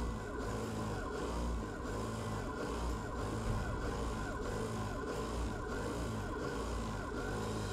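APQS Millennium longarm quilting machine stitching, its motor and needle running steadily with a pitch that rises and falls about twice a second.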